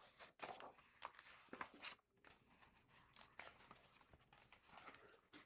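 Near silence, with faint paper rustles and light handling noises as a picture book is opened to its first page.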